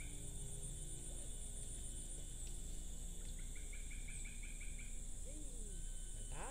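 Forest insects droning steadily at a high pitch. About halfway through, a rapid run of chirps rises over them, about five a second for a second or two.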